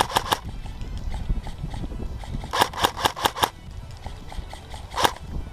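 Airsoft gun firing a short burst of about six shots at roughly eight a second, then a single shot near the end.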